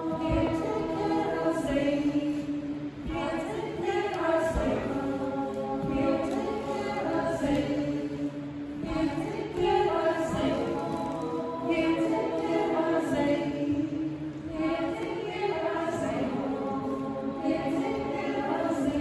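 Small community choir singing a cappella, several voices together in phrases a few seconds long.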